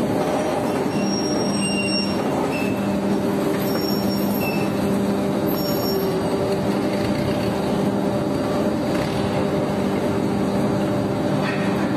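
Ring rolling mill running while it rolls a red-hot steel ring between its main roll and mandrel: dense, steady machine noise with a steady hum that comes in about a second in, and a few brief high squeaks.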